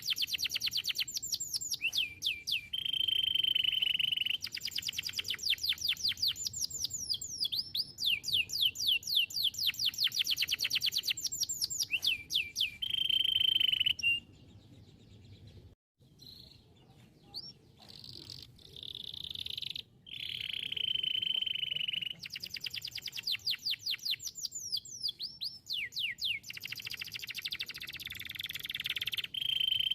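Domestic canary singing: rapid trills of repeated high, downward-sweeping notes alternating with held rolls. The song stops for about two seconds midway, then comes back softly and builds again.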